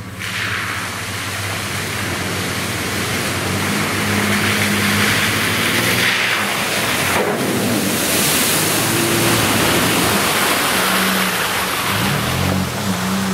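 Nissan Frontier PRO-4X pickup's V6 engine pulling steadily through deep water on a sand trail, under a loud rushing hiss of water churned and thrown by its mud-terrain tyres. The engine pitch rises and falls as the throttle changes near the end, as the truck comes past close by.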